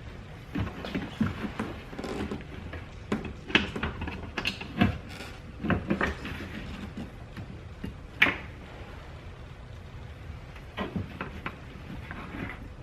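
Irregular clicks, knocks and handling noise of reverse-light bulb sockets and LED bulbs being worked into the tail-light housing, with one sharper click about eight seconds in.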